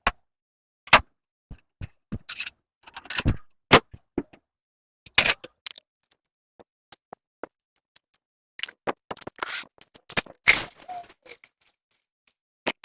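Scattered clicks, knocks and short scrapes of metal shower-door frame pieces being handled and taken apart, with gaps of silence between.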